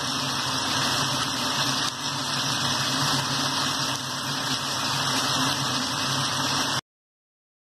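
Pot of rice boiling on the stove: a steady bubbling hiss over a constant low hum, cutting off abruptly about a second before the end.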